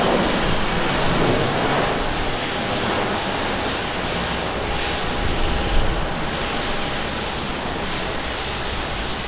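Starflyer Airbus A320-200's jet engines at takeoff thrust, a steady roar that slowly fades as the airliner lifts off and climbs away. A brief thump about six seconds in.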